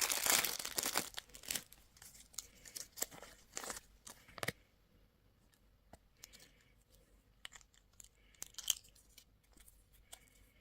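A candy wrapper being torn open and crinkled by hand. The crackling is dense for the first second, turns into scattered crackles, and dies away to occasional faint ticks after about four and a half seconds.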